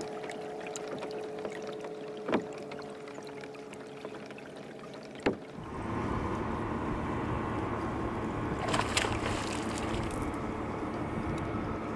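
Sounds of a kayak out on the water: a steady rush of wind and water, with two sharp knocks about two and five seconds in. About six seconds in, the rush grows louder and fuller.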